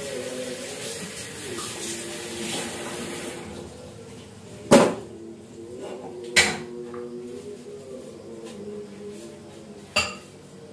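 Metal cookware clattering as a wok is set on a gas stove and pans are handled: three sharp clanks, the loudest about five seconds in, another about a second and a half later and a third near the end. A scraping rub comes first and stops after about three seconds.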